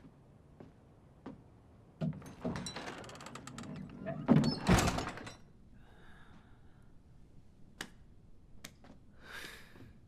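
Heavy wooden double doors pushed shut, scraping and creaking for about three seconds and closing with two heavy thuds. A couple of faint footsteps come before, and a few light clicks after.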